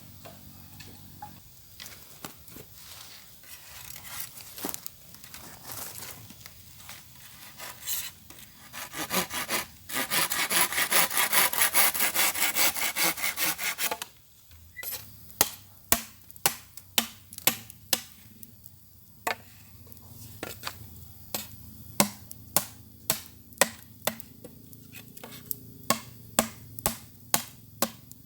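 Bamboo being worked by hand. A few light knocks, then a saw cutting through it in quick strokes for about four seconds, followed by sharp chopping blows, about two a second.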